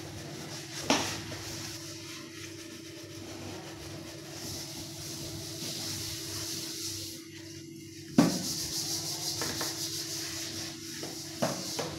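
Sponge scrubbing a stainless steel strainer bowl by hand: a steady rasping rub. Sharp metal knocks about a second in and again around eight seconds in, the second the loudest, with a lighter one near the end.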